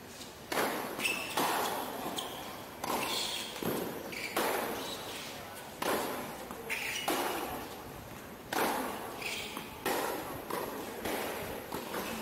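A tennis doubles rally on a hard court: a string of sharp racket strikes on the ball and ball bounces, roughly one every second.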